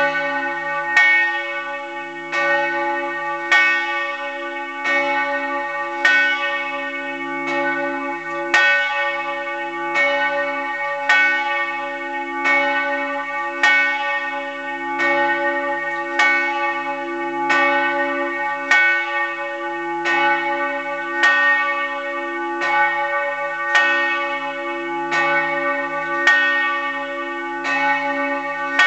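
The Peter bell, 143 cm across, cast in 1930 by the Fischer brothers of Trnava and tuned to C-sharp, swings and tolls for a funeral. The clapper strikes about every 1.25 seconds in an even rhythm, and each stroke rings on into the next. It is heard up close in the belfry.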